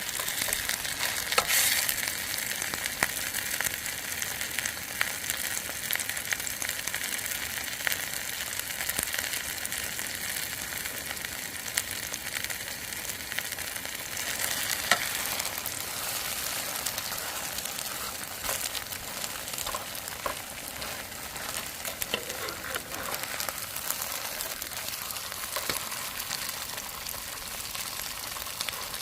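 Korean savory pancake (buchimgae) frying in oil in a pan: a steady sizzle with many sharp crackles and pops.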